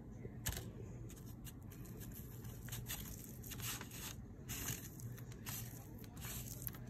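Fingertips squishing and grinding crushed Orbeez water beads against a plate into a wet paste: irregular short crackly squelches, several a second at times.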